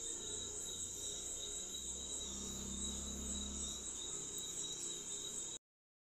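Crickets trilling steadily in the background as a faint high, finely pulsing chirr, over a low hum. The sound drops out to silence for a moment near the end.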